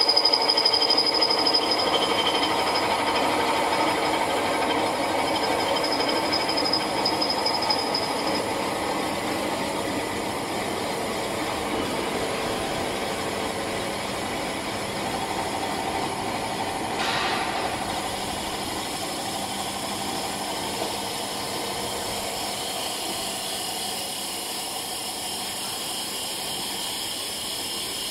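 Pet and fish feed extruder running, its electric motors and screw making a steady mechanical noise. A high whine fades out over the first several seconds, and a short hiss comes about 17 seconds in.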